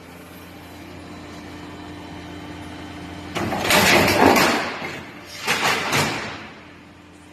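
Roofing-sheet factory machinery running with a steady hum, broken about three and a half seconds in by two loud, noisy rushes, the first longer and louder, one after the other.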